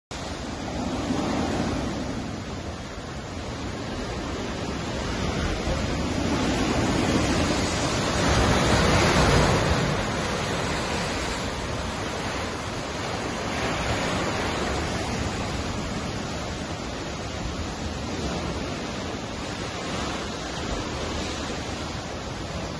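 Hurricane-driven surf breaking over rocks and reef, a continuous rushing wash that swells and ebbs with each set of waves, loudest about nine seconds in.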